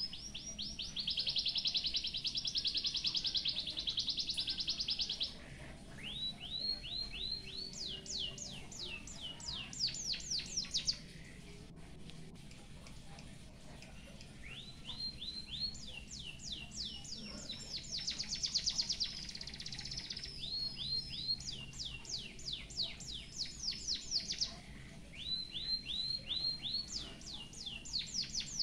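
An emprit haji (white-headed munia) singing a canary-style song: a fast buzzy trill and runs of repeated downward-sweeping notes, in three long phrases with short breaks between them.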